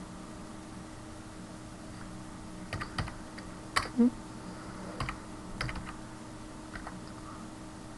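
Computer keyboard keys being pressed one at a time: a handful of separate clicks between about three and seven seconds in, the loudest near the middle, over a steady low hum.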